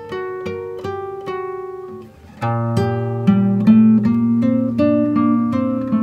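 Background music of plucked acoustic guitar notes; after a brief dip about two seconds in, a fuller passage with a deep bass line comes in.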